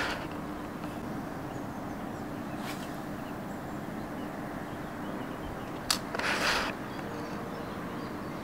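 Steady outdoor background with a faint low hum. About six seconds in comes a sharp click followed by a short hiss, from a spinning rod and reel being cast.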